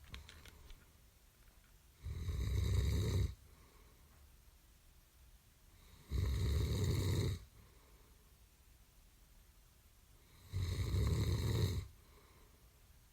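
Loud snoring: three snores about four seconds apart, each lasting a little over a second, with quiet gaps between.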